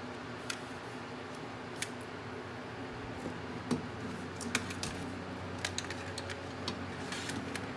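Scattered light clicks and taps, growing more frequent after about three seconds, over a steady low hum, typical of a computer mouse and keyboard being used beside a running desktop PC.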